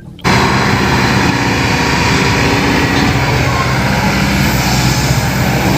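A motorised machine switched on abruptly, then running steadily with a low hum under a loud hiss.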